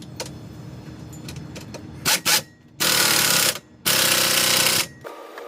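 Impact wrench running in three bursts, a short one then two of about a second, driving the brake caliper bolts home.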